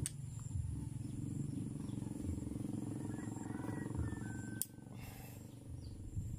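A screwdriver clicking twice against a Stihl 070 chainsaw carburetor as its inlet-needle lever and spring are worked out. Under it is a low steady rumble that drops away at the second click, about four and a half seconds in.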